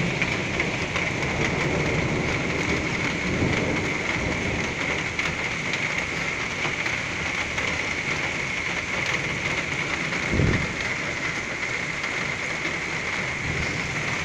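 Torrential rain pouring steadily, with thunder rumbling through the first few seconds. A brief low thump comes about ten seconds in.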